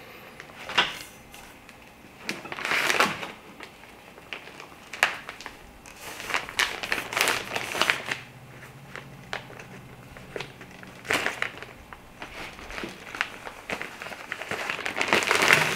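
Rustling and crinkling of the reflector's fabric while a flexible tensioning rod is handled and worked into its pocket, with scattered light knocks and clicks.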